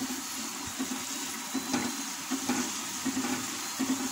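Squares of flour dough deep-frying in hot oil in a wok, a steady sizzle, as they turn golden. A wire mesh skimmer stirs them, with short scrapes and knocks recurring every second or so.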